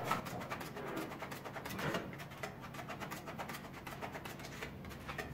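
Body filler spreaders scraping and clicking against each other as polyester body filler is worked and gathered onto the blade, a fast, irregular run of short scrapes.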